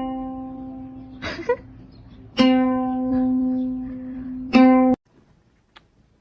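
Plucked string instrument, guitar or ukulele, striking the same note over and over, each note ringing and fading, struck about two and a half seconds in and again near four and a half seconds; the sound cuts off abruptly about five seconds in. A short gliding sound comes about a second in.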